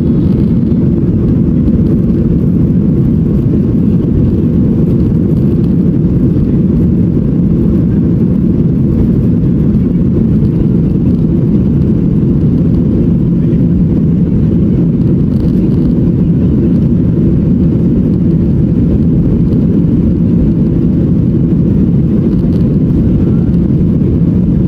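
Jet airliner cabin noise heard from a seat over the wing: a steady, loud low rumble of the engines and airframe as the plane rolls along the runway, with no change in pitch or level.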